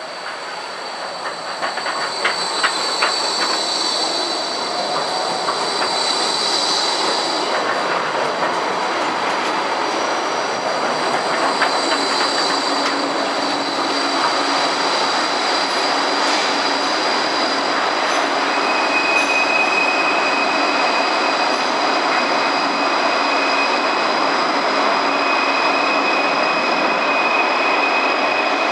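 Gold Coast G:link light-rail tram (Bombardier Flexity 2) running close by, with wheel squeal held as steady high tones and a few clicks of the wheels over the rail joints a few seconds in.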